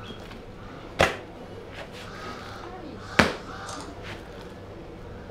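Large wooden pestle pounding fufu of cassava and plantain in a mortar: two heavy thuds about two seconds apart.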